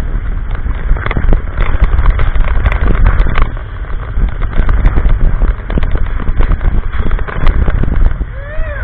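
Big Thunder Mountain Railroad mine-train coaster running on its track in the dark: a loud, steady rumble with rapid clattering and knocks from the train.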